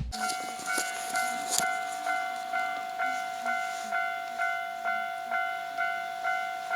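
Japanese railway level-crossing warning bell ringing steadily in its clanging "kan-kan" pattern, about two strokes a second, each stroke a short ringing chime that quickly fades. The crossing is in a fault state.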